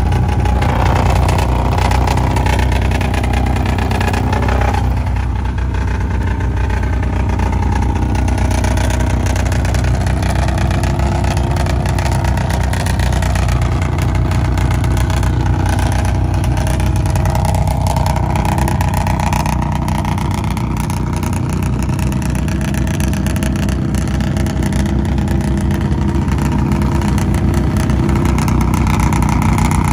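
Loud truck engines running and revving steadily at a mud bogging event, with a few slow rises and falls in pitch.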